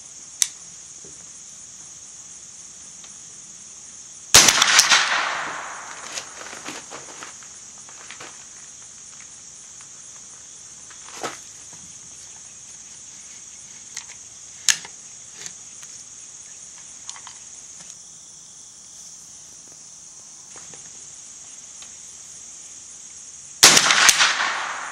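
Two shots from a Smith & Wesson M&P 15-22 .22 rimfire semi-automatic rifle, about 19 seconds apart, each with a short echo, and a few faint clicks between them. After the second shot the spent case stays in the ejection port: a failure to eject. A steady high insect buzz runs underneath.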